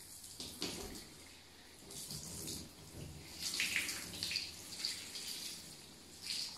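A thin stream of water running from a bathtub mixer tap and splashing onto the tub floor, faint, with uneven bursts of splashing.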